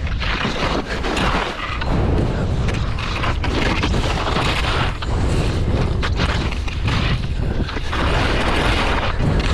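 Skis sliding and scraping over packed snow on a downhill run, with a hiss that swells and fades from turn to turn, under a heavy rumble of wind buffeting the microphone.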